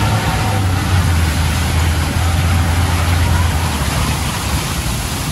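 Off-road vehicle's engine running under load as it drives through deep mud, heard from inside the cab, with a steady wash of tyre, water and rain noise. The low engine drone eases off about four seconds in as mud and water splash over the windscreen.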